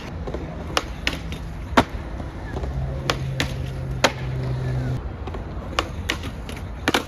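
Skateboard on a concrete skatepark: wheels rolling with a low, steady rumble, broken by about eight sharp clacks of the board popping and landing.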